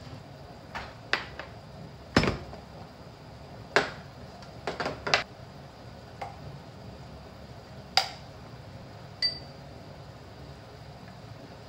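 Scattered clinks and knocks of kitchenware as potato starch is spooned into a small glass bowl and a glass measuring jug is handled; the sharpest knock comes about two seconds in. One clink about nine seconds in rings briefly, like glass being struck.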